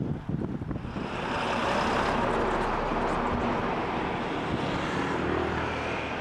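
Water washing over shore rocks, then about a second in a steady rush of road traffic noise.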